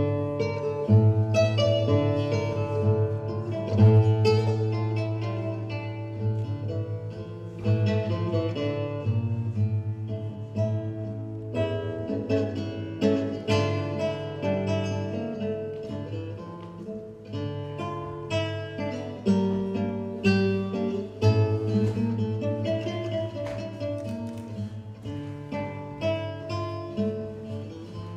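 Instrumental background music: acoustic guitar playing plucked notes over a steady low bass.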